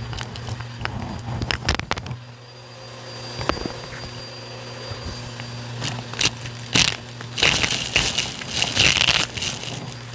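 Bissell vacuum running with a steady hum while grit and debris crackle and crunch as they are sucked up from a shag rug. There are scattered clicks, then a dense run of crackling about seven and a half seconds in.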